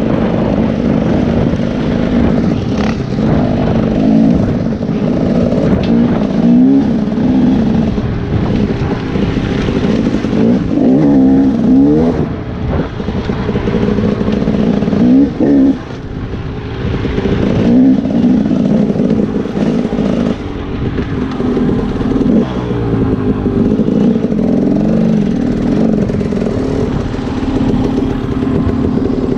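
Dirt bike engine being ridden hard, revving up and down again and again as the rider works the throttle and gears, easing off briefly twice near the middle.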